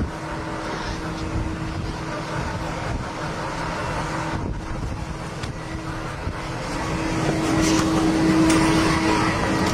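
Steady engine drone over a rushing noise, holding one steady tone and growing louder about seven seconds in.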